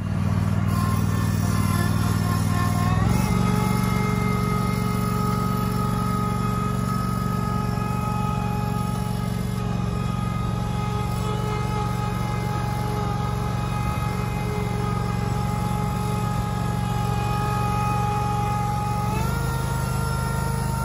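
Small garden tractor engine running steadily while it drags a wire-burying plow blade through the lawn turf. The engine speed steps up about three seconds in and its pitch shifts again near the end.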